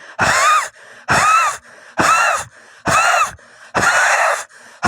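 A woman's harsh, wheezy breaths, five in a row about once a second, each with a thin whistle that rises and falls: the metallic wheeze she attributes to breathing volatile chemical fumes.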